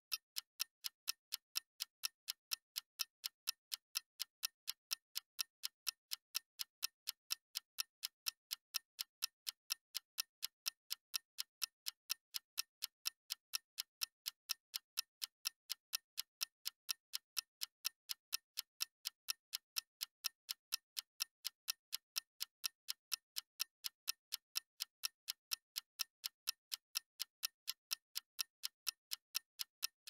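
Steady, evenly spaced ticking, about three ticks a second, clock-like and unchanging in pace and loudness.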